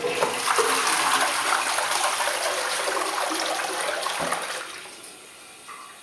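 A toilet flushing, set off by pressing its push-button: a rush of water for about four seconds that then dies down.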